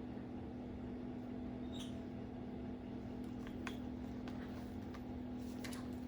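Quiet room tone: a steady low electrical-sounding hum with a few faint, short clicks scattered through it.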